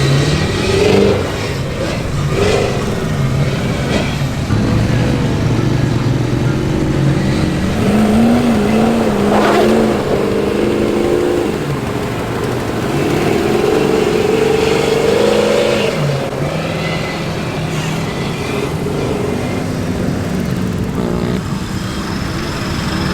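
A fully built truck's 6.4-litre engine revving hard, its pitch rising and falling again and again as it is driven on the throttle.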